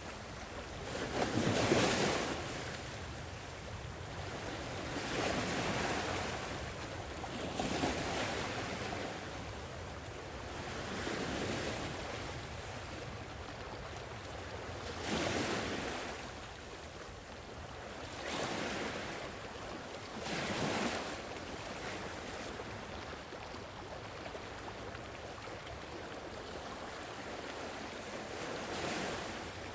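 Gentle sea waves washing onto a shore. Each wash swells and fades at uneven intervals of a few seconds over a steady hiss.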